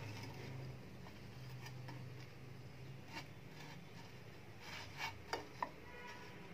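A plastic spatula scraping and tapping against a nonstick frying pan while slices of toast are flipped, with three quick sharp clicks about five seconds in, over a faint low hum.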